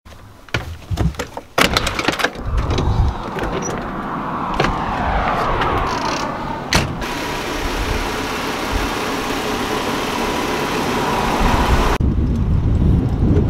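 Clicks and knocks of a motorhome's entry door being unlatched and opened. Then steady outdoor noise with a passing vehicle on the road, its pitch falling. Near the end the sound switches abruptly to low wind rumble on the microphone.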